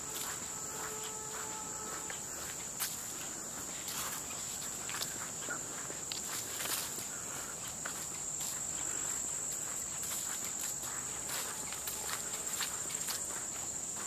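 Footsteps of a person walking on a dirt trail and then grass, irregular soft steps over a steady high-pitched insect chorus.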